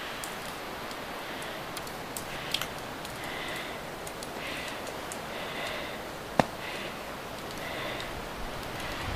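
Steady outdoor hiss, with faint high chirps recurring about once a second from a couple of seconds in, and one sharp knock about six and a half seconds in.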